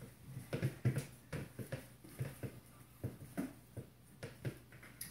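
A wooden spoon knocking and clattering against toy cookware as a child plays at cooking, a run of irregular light knocks that tails off near the end.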